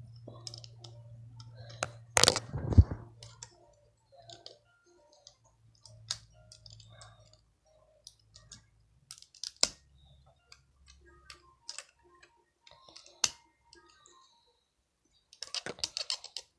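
Hard plastic KreO Transformers construction-toy parts clicking and tapping as the combiner figures are handled and snapped together. The clicks are irregular, with a louder clatter about two seconds in and a quick run of clicks near the end.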